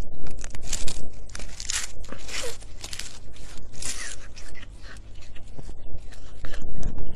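A cat crunching and tearing at a dried fish with its teeth: a run of irregular, loud, crackly crunches close to the microphone, several a second, thinning out toward the end.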